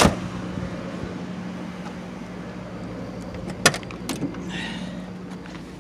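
1999 Lincoln Town Car limousine's door shutting with a thump, then about three and a half seconds later a rear door latch clicks and the door is opened, over a steady low hum.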